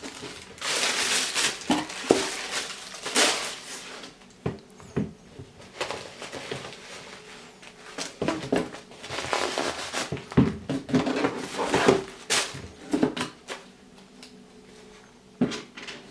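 A pair of sneakers being handled and turned over by hand: irregular bursts of rustling, with several sharp knocks scattered through.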